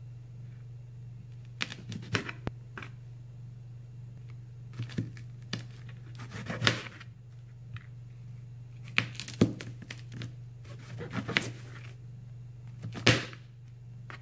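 Kitchen knife cutting through a bitter gourd on a plastic cutting board: about six short bursts of slicing and sharp knocks of the blade on the board, over a steady low hum.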